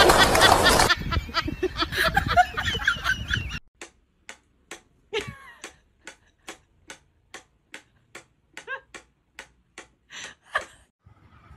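A steady ticking like a clock, a little over two ticks a second, with a few short faint mews from a sleeping cat. For the first few seconds there is loud rough noise with voices.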